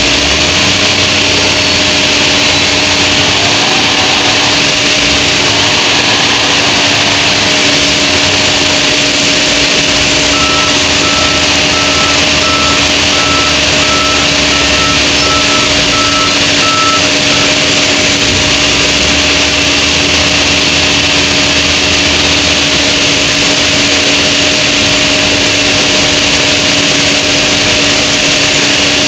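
Wheel loader's diesel engine running under changing load, with a constant machine hum throughout; its reversing alarm beeps evenly, about one and a half beeps a second, for several seconds midway.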